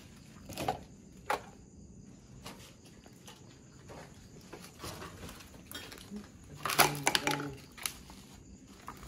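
Scattered clatter and knocks from objects being handled and footsteps in a cluttered room, with two sharp knocks in the first second and a louder burst of clatter about seven seconds in.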